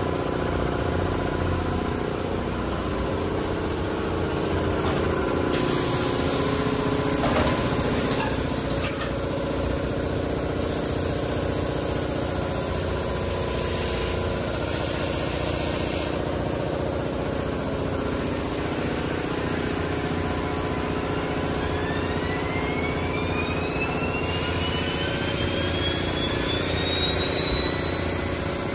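Vacuum-forming machine's motors and pumps running with a steady mechanical hum made of several steady tones. About two-thirds of the way through, a high whine rises in pitch and levels off near the end as a motor spins up. A few knocks come around a quarter of the way in.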